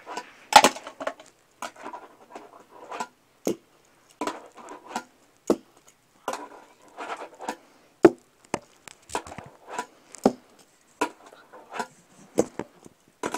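Fingerboard being flipped and ridden on a small plastic stair set: irregular sharp clacks of the board popping and landing, with short stretches of wheels rolling between them.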